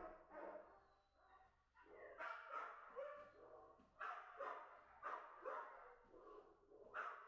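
A dog barking repeatedly, about ten short barks at uneven intervals, fairly faint.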